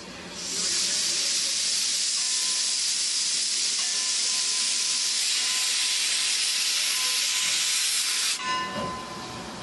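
Steam locomotive Eureka & Palisade No. 4's open cylinder drain cocks blowing steam in a loud, steady hiss as the engine starts forward, clearing water from its cylinders. The hiss begins about half a second in and cuts off suddenly about a second before the end.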